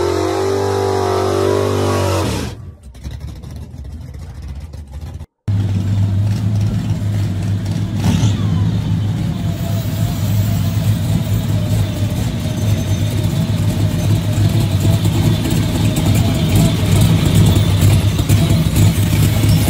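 A classic American V8 revs hard during a burnout for about two seconds, then drops away. After a brief dropout, a C2 Corvette Sting Ray's V8 runs loudly and unevenly for the rest, slowly growing louder.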